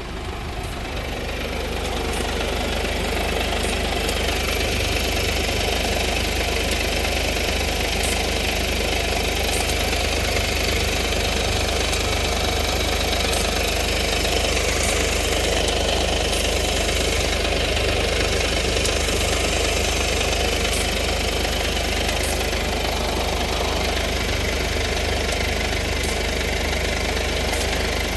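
2014 Mercedes-Benz engine idling with a leaking exhaust, a fault that appeared after recall work on the exhaust. It grows louder over the first few seconds, then runs steadily.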